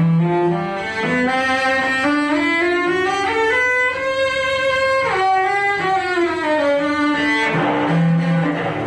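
Carbon-fibre cello played solo with the bow, a line of notes climbing step by step to a high held note about halfway through, then descending again to low notes near the end.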